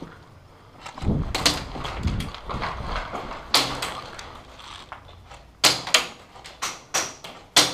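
Airsoft guns firing single shots: sharp cracks, a pair about a second and a half in, one near four seconds, then a quicker irregular string from about five and a half seconds on. Low knocking and rustling of movement between about one and three seconds.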